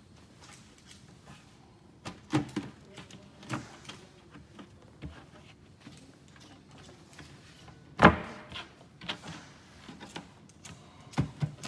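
Irregular knocks and clatter of wooden cabinet parts being handled, as the 1/4-inch plywood back is worked into place against the frame. The loudest is a single sharp knock about eight seconds in, with a quick pair of knocks near the end.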